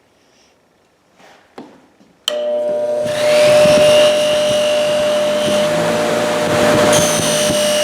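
Cheap bench buffer switched on about two seconds in, its motor running with a steady hum and whine and its rouge-charged buffing wheel hissing as metal is worked against it.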